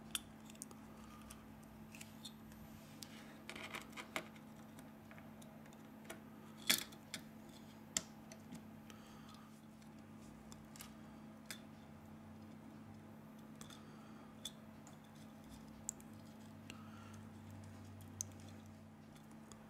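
Faint, scattered small clicks and taps of metal tweezers and small phone parts being handled during a smartphone teardown, over a faint steady hum. The sharpest clicks come about seven and eight seconds in.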